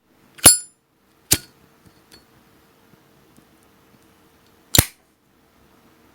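Zippo lighter handled: three sharp metallic clicks, the first with a brief high ringing ping, the third about three seconds after the second, with faint small ticks between.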